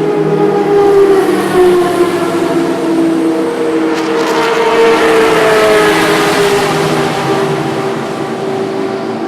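Vintage Indy race car engines running hard on track. One car comes close and is loudest about five to six seconds in, and its engine pitch drops slightly as it goes by.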